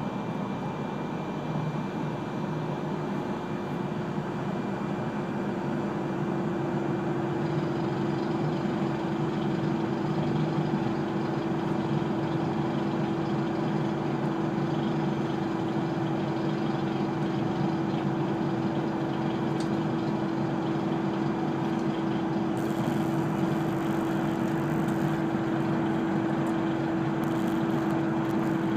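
Inside the passenger cabin of an E3-series Shinkansen train running at a steady speed: constant running noise with a steady hum that sets in about two seconds in.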